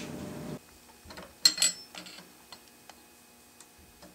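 Metal tool clicking against a Stihl chainsaw's bar-mounting hardware as the chain is adjusted: a sharp double click about a second and a half in, then a few lighter ticks.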